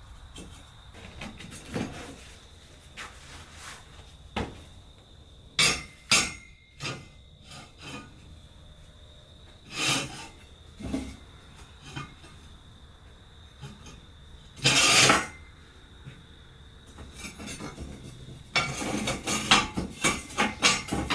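Steel parts and tools clinking and clanking as they are handled and set down on a workbench. There are scattered single knocks, a longer scrape about fifteen seconds in, and a run of quick rattling knocks near the end.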